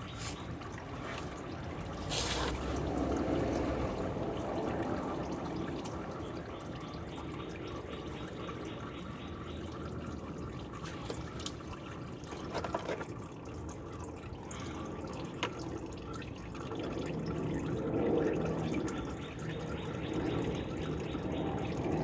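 Old engine oil dripping and trickling as it drains out during an oil change. A few short knocks are heard about 2, 12 and 15 seconds in.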